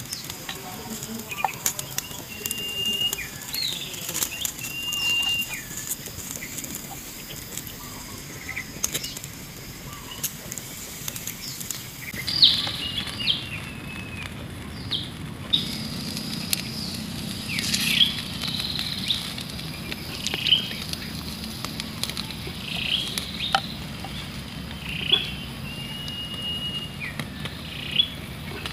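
Birds calling with short sweeping chirps and a few held whistles, coming about every two to three seconds in the second half, over the light crackle of a wood fire. A steady high hiss sits under the first half and thins out about halfway through.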